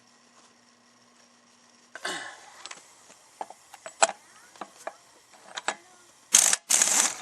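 Sharp metal clinks and knocks of tools on the wheel hub, then two loud bursts of a power impact wrench on the hub fasteners, its motor winding down with a falling whine after each burst.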